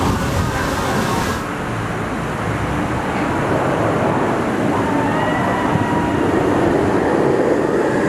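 Steel roller coaster train running along its track on an empty test run, a continuous rumble with a faint whine, building a little in the second half.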